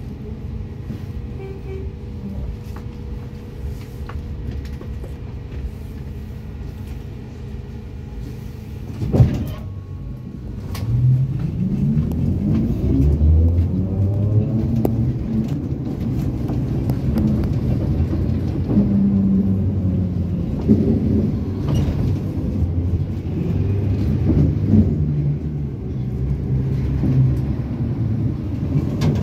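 ZiU-682 trolleybus heard from on board: a low steady hum, then a single loud bang about nine seconds in. After that the traction motor's whine rises in pitch as the trolleybus pulls away, then runs on with a wavering hum.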